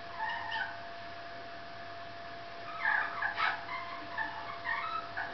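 Bouts of short, high-pitched whimpering squeaks from a small animal, with a faint steady hum tone underneath.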